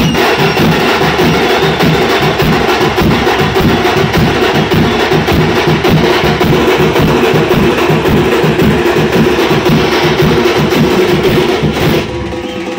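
A troupe of parai frame drums beaten with sticks in a fast, dense, driving rhythm, loud. The drumming stops abruptly near the end, leaving quieter music.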